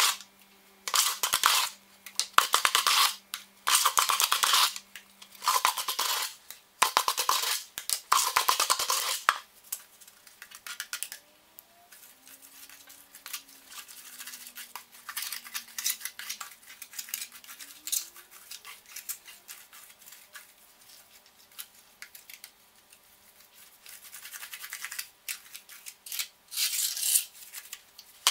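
Trowel scraping wet mortar on a concrete floor: about six rough strokes of a second or so each in the first nine seconds, then softer taps and scrapes, then more strokes near the end.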